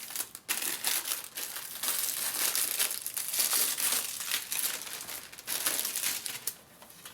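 Packaging of a diamond painting kit crinkling and crackling as it is opened by hand, a dense run of quick crackles that dies down near the end.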